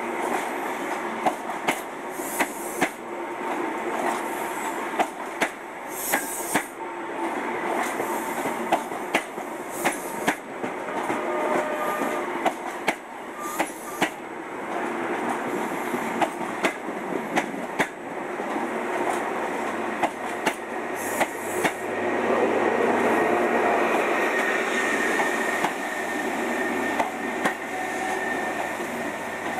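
HST coaches rolling slowly past, their wheels clicking sharply over the rail joints, often in quick pairs as each bogie crosses. In the last several seconds the trailing class 43 power car's diesel engine comes close with a steady drone, and the sound grows louder.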